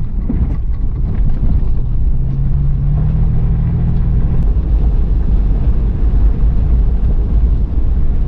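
Toyota FJ Cruiser's V6 engine and tyres rumbling steadily while driving on a dirt trail, with the engine note rising slightly for a couple of seconds around the middle.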